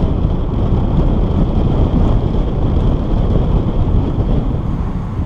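Honda Fit driving with the driver's window open: steady engine and road rumble with wind buffeting the microphone, easing off slightly near the end.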